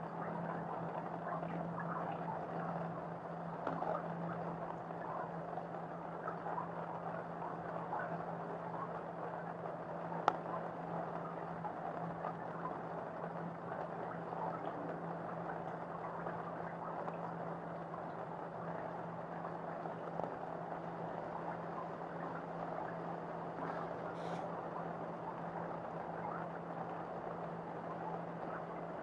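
Steady rain falling and pattering on a balcony, with a constant low hum underneath and a single sharp tick about ten seconds in.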